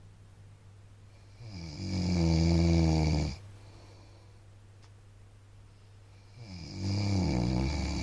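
A man snoring in his sleep: two long, loud snores about five seconds apart, each rising in pitch as it begins.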